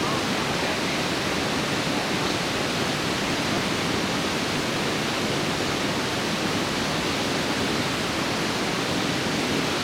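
Steady rushing of river water, an even roar with no break or change.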